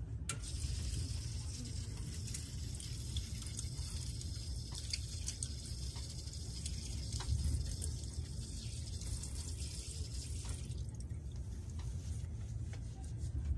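Water running from the tap of a fold-out train-compartment washbasin as hands are washed under it, splashing into the basin; the flow stops toward the end. A steady low rumble lies underneath throughout.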